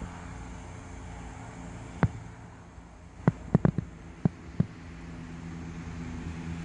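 A steady low hum with sharp clicks: one about two seconds in, then six more in quick succession over the next two and a half seconds.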